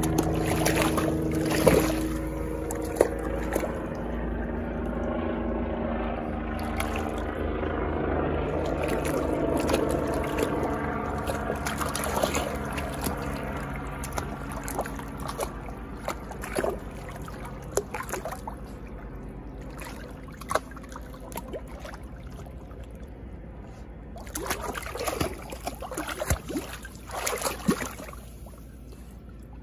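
Water sloshing and splashing in a shallow plastic kiddie pool as a small dog wades after a ball and a person's feet move through the water. A steady motor-like hum is heard in the first half and fades out.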